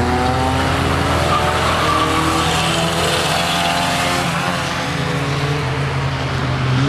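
An old saloon car's engine revving hard, its pitch climbing and dropping again and again, as the car slides sideways around a wet track.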